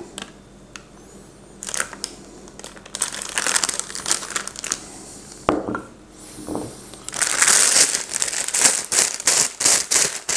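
Disposable plastic piping bag crinkling as it is handled and filled with melted chocolate. The crinkling is scattered at first and turns dense and louder about two-thirds of the way in.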